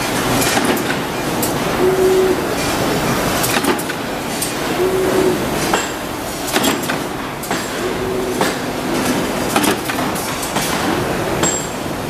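Roll-forming machine running, its steel rollers shaping steel strip into drawer-slide rail: a steady mechanical clatter with scattered clicks and knocks, and a short tone that comes back about every three seconds.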